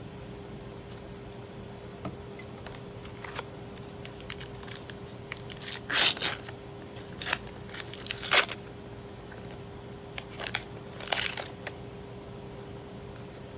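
Booster pack wrapper crinkling and tearing open in a series of short crackles. The loudest come about halfway through, with another cluster near the end.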